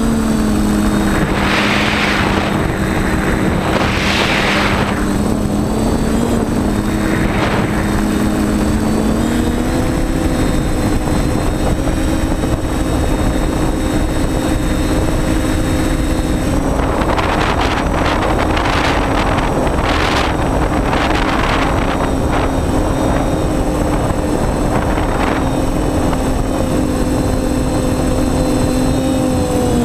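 TBS Discovery quadcopter's electric motors and propellers whining steadily, heard from the drone's onboard camera, with the pitch stepping up slightly about a third of the way through. Air rushes over the microphone several times, mostly in the second half.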